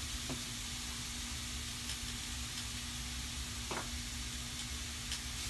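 Pieces of roast searing in a frying pan on a gas stove: a steady sizzle, with a low steady hum underneath.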